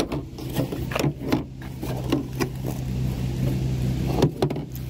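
Clicks, knocks and rustling as the old, deteriorated convertible top cover and tack strip are handled, over a steady low hum.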